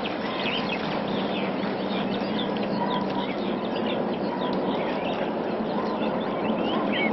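Small birds chirping, many short calls in quick succession, over a steady background hiss.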